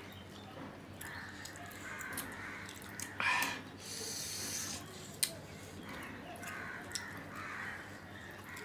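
Close-up eating sounds of people eating rice and curry with their fingers: wet chewing and lip-smacking with scattered sharp clicks. There is a short louder mouth noise just after three seconds and a brief sucking hiss about four seconds in.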